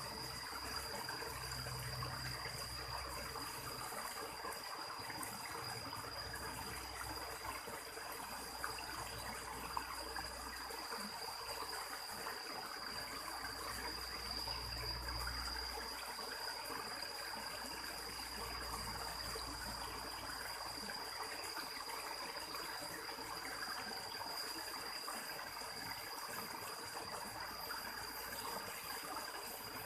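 Water trickling and flowing steadily, with a thin, steady high-pitched tone above it and a couple of faint clicks near the middle.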